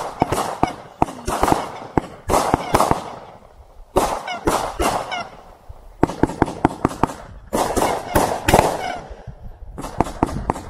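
A 500-gram firework cake firing volley after volley of sharp bangs as its tubes launch and burst, with a short lull about halfway through.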